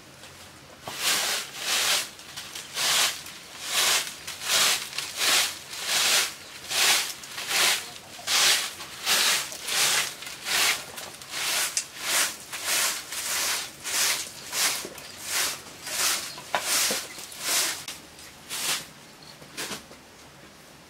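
Broom sweeping a dirt floor: a long run of even swishing strokes, about three every two seconds, stopping near the end.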